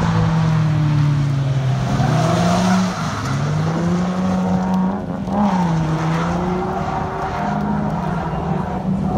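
Nissan 350Z's V6 engine revving up and down through a drift, its pitch rising and falling again and again, over tyres skidding and squealing on asphalt.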